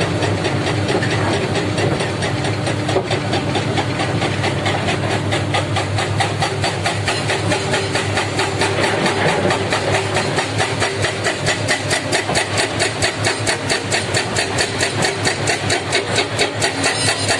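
Heavy diesel engine running steadily, with a regular pulsing beat of about five a second that grows stronger in the second half.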